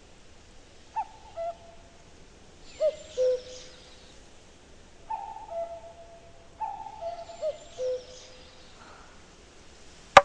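Common cuckoo calling: about five two-note 'cuck-oo' calls, each a higher note dropping to a lower one, some pairs pitched lower than others.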